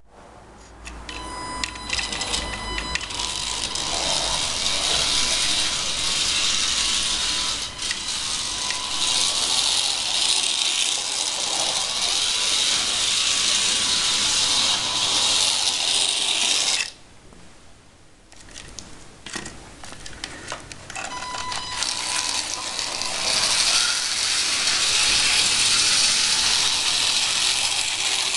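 Scalextric slot cars running round the track, their small electric motors whirring with a rattling buzz from the gears and pickups. The sound cuts out suddenly a little over halfway through and builds up again a few seconds later.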